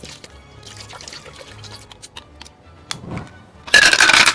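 Sea snail shells clicking against each other and the pot as they are stirred in water. About three and a half seconds in comes a sudden loud rush of clattering shells and pouring liquid as they are tipped into a bowl of sauce.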